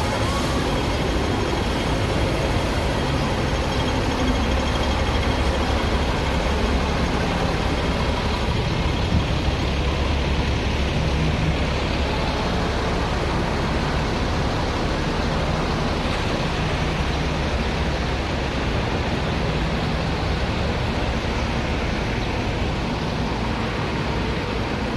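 Steady street traffic noise, a low rumble of vehicle engines with double-decker buses running close by.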